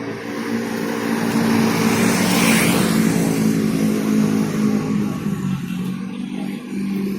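A motor vehicle's engine running as it passes close by. The noise swells to its loudest about two and a half seconds in, and the engine note steps slightly lower near the end.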